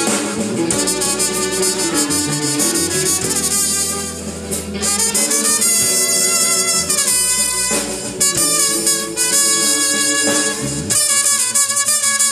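Trumpet playing a lead melody over a live band, backed by electric bass.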